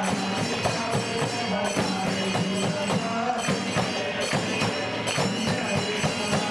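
Marathi devotional aarti music continuing between sung verses: steady rhythmic hand percussion with jingling metal over a held low tone.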